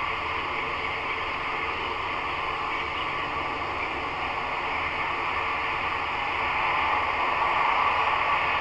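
Steady radio static hissing, as from a ghost-hunting spirit box sweeping through stations, growing a little louder near the end.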